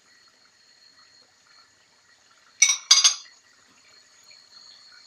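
Mini spring rolls deep-frying in hot sunflower oil, a steady faint sizzle, with two sharp metallic clinks of a fork against the pot about two and a half and three seconds in.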